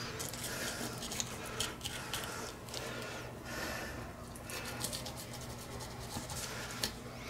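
Knife cutting a fillet from a whole mangrove snapper on a plastic cutting board: soft, irregular scratching with small clicks as the blade works through the scaled skin and flesh. A low steady hum runs underneath.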